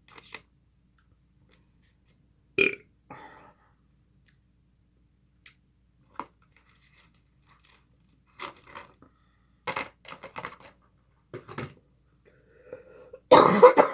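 A person belches loudly near the end, a long burp that falls in pitch. Before it come a short sharp sound about two and a half seconds in and a scattering of short clicks and scrapes.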